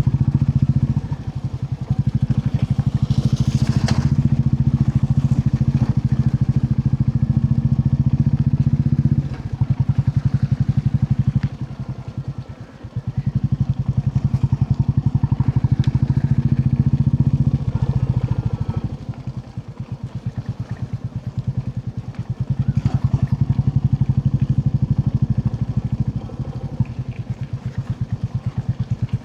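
Royal Enfield Classic 350's single-cylinder engine running under way, its exhaust beat rising and falling with the throttle. It eases off briefly about twelve seconds in and runs quieter for a few seconds past the middle before picking up again.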